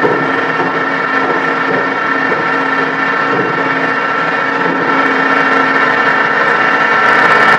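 Steady, loud industrial din of forge-shop machinery, a continuous rush with several held tones and no hammer blows, growing a little louder in the second half.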